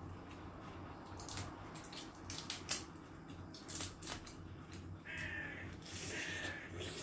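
Sharp clicks and cracks of eating crab, shells and utensils, several in quick succession, followed by three harsh calls about a second apart near the end.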